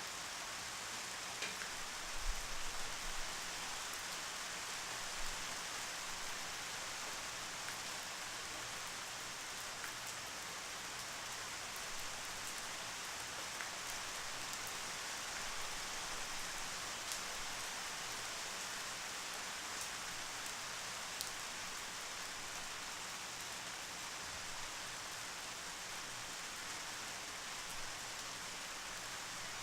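Steady rain falling, an even hiss with faint scattered drop ticks. A few brief low thumps come about two to three seconds in.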